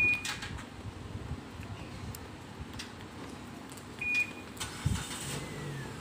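Proton Preve's aftermarket alarm gives a short chirp, and another about four seconds in; then the engine cranks and catches in a short burst and settles into a steady idle. This is a remote engine start from the key fob.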